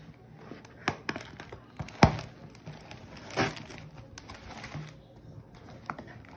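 Cardboard shipping box being cut open with scissors and its flaps and paper label handled: scattered snips, knocks and rustles of cardboard and paper. The loudest knock comes about two seconds in, and a longer rustle follows near the middle.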